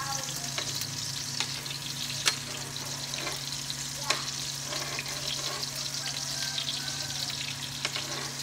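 Chopped vegetables sizzling in a hot nonstick frying pan as a metal spoon stirs them. Sharp clicks of the spoon against the pan stand out about two seconds in and again about four seconds in.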